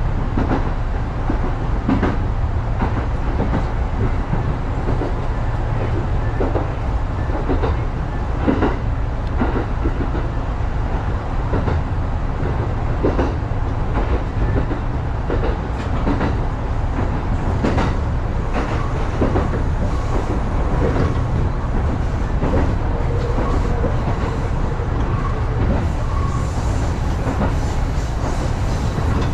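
Electric commuter train running along single track, heard from inside the cab: a steady low rumble of the wheels on the rails, with irregular clicks as the wheels pass over rail joints.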